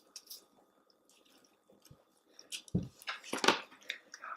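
Chewing of chicken nuggets: soft wet mouth clicks and squishing, growing louder in the last couple of seconds.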